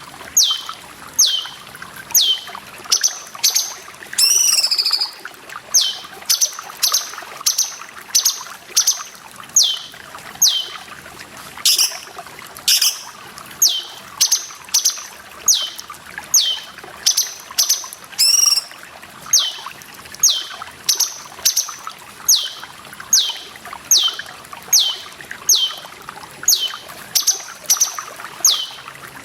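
Cucak cungkok bird calling over and over, each call a quick downward-sliding whistle, more than once a second. A few different chirps break in around 4 and 18 seconds. Water trickles steadily underneath.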